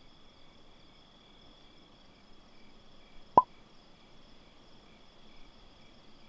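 Insects trilling steadily in the background, with a second insect chirping about twice a second. A single sharp knock about three and a half seconds in is the loudest sound.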